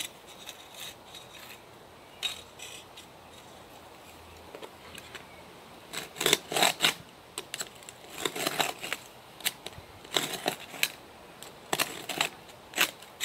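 Stanley knife slicing through roofing felt along a spirit level used as a straight edge. It makes short scratchy cutting strokes, a few at first, then in dense bursts through the second half. The felt is hard to cut and takes repeated passes.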